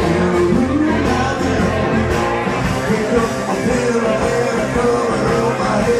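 Live country band playing, with fiddle and acoustic guitars and a singer, loud and steady, in a large room.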